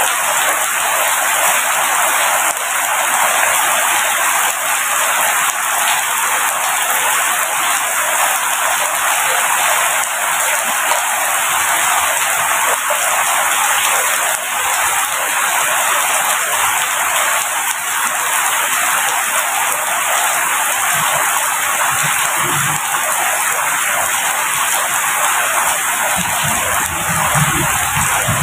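Steady rain falling, a dense, even hiss of raindrops. A few faint low rumbles come in during the last few seconds.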